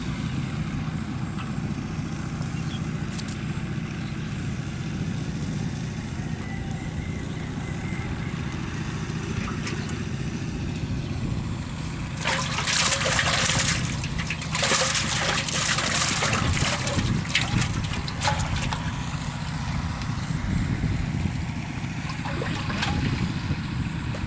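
Water splashing and sloshing in a metal pot as a freshly caught fish is put in and thrashes, in several loud bursts over about six seconds starting about halfway through. A steady low rumble underlies it.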